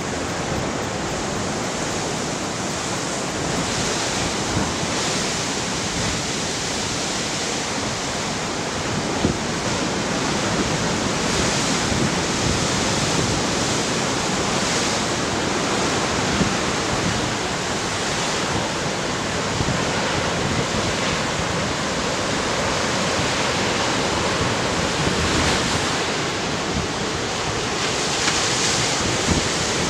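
Ocean surf breaking and washing over layered limestone rocks: a steady rushing sound that swells now and then as larger waves come in.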